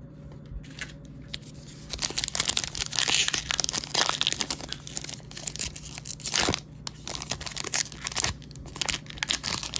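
A wax-paper-style trading card pack wrapper being torn open and crinkled by hand. A few small clicks come first, then a dense run of tearing and crinkling starts about two seconds in.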